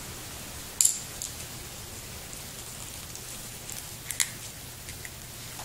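A few sharp, high-pitched clicks and crackles from the thin, torn metal jacket of a zinc-carbon battery cell being bent and handled, over a steady hiss. The loudest click comes about a second in, with a small cluster about four seconds in.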